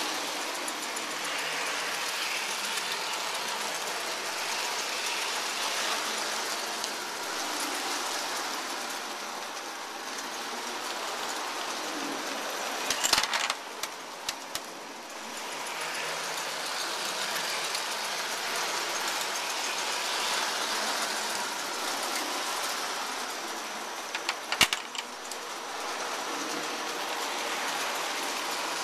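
Lionel model trains and layout accessories running: a steady mechanical whir and rumble of toy train motors and wheels on the track. Two short bursts of clatter break in, about halfway through and near the end.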